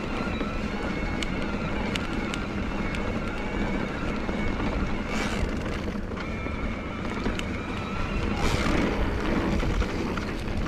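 Bosch Performance Line CX mid-drive motor of an e-mountain bike whining steadily under pedal assist on a climb, over a low rumble and scattered sharp clicks from the bike on the rough trail. Short rushes of wind on the microphone about five seconds in and again near eight and a half seconds.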